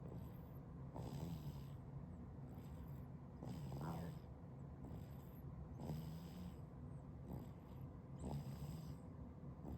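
A nine-month-old baby snoring softly in its sleep, a rasping breath about every two and a half seconds, four in all.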